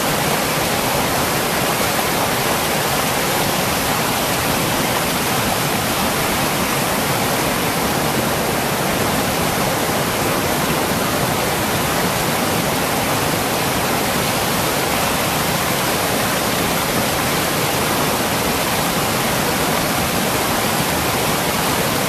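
Mountain river rushing over rocks in a small white-water cascade: a loud, steady rush that does not change.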